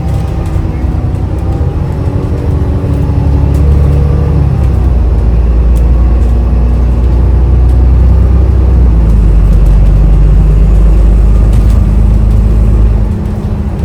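Bus engine running with a heavy low rumble that grows louder about four seconds in and eases off near the end.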